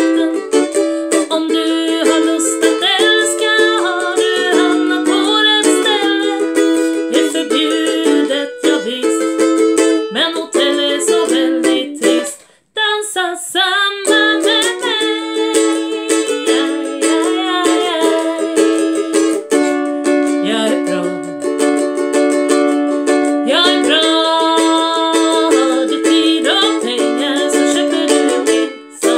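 A woman singing in Swedish while strumming a ukulele. The playing breaks off briefly about twelve seconds in, then carries on.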